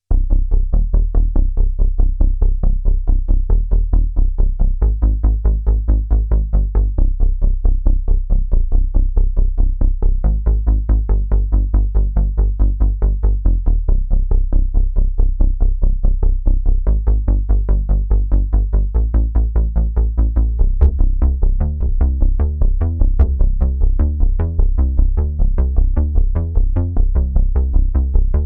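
Roland Juno-106 analog synthesizer playing a fast, evenly pulsing bass line whose pitch steps every couple of seconds. About three-quarters of the way through, the pattern turns busier and brighter.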